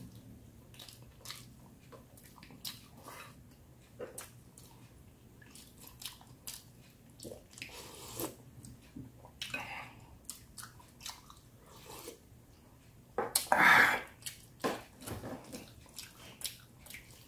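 Close-up chewing of boiled pork, with wet smacking and clicking mouth sounds, and slurping of sinigang broth from a spoon. One louder, noisier mouth sound comes about 13 seconds in.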